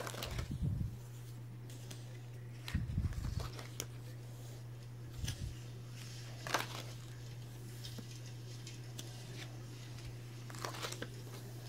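Paper pages of a spiral-bound sketchbook being handled and turned: scattered rustles and soft clicks, a few with a low thud, over a steady low hum.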